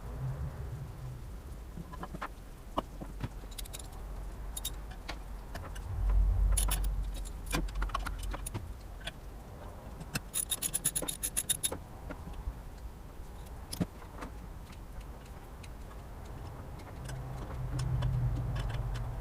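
Metal tools and parts clinking and knocking during mechanical reassembly, with a quick even run of about a dozen ticks just after the middle.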